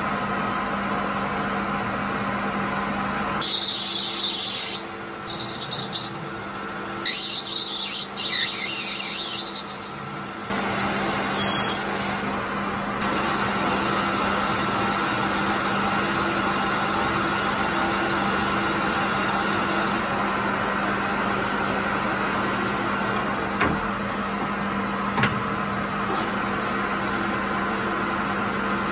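Mini lathe motor running steadily with a constant hum. For several seconds, about a third of the way in, a high-pitched whine comes and goes as the tool cuts the metal.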